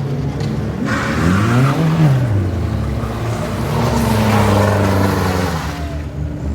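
A car's engine being driven hard: its pitch climbs and drops sharply about a second or two in, then holds steady at high revs under a rushing hiss.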